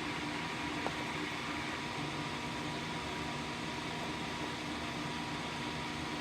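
Steady background hum and hiss, with one faint click about a second in.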